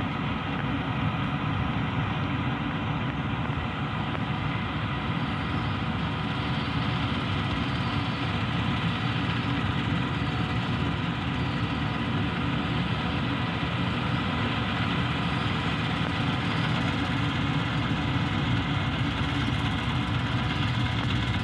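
Diesel farm machinery running steadily at constant speed: a continuous engine drone with several steady whining tones over it.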